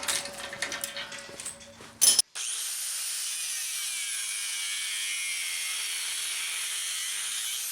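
Cordless drill boring holes through steel angle iron and flat bar. Uneven cutting noise with a sharp crack about two seconds in, then a steady high hiss as the bit cuts.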